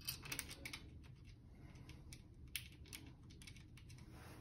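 Faint, light clicks of small screws being turned by hand into a cooler door's metal lock plate. A cluster of clicks comes in the first second, then a couple more about two and a half to three seconds in.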